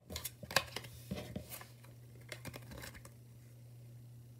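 Trading cards being handled and laid down on a table: several short papery slaps and slides, thinning out after about three seconds, over a faint steady low hum.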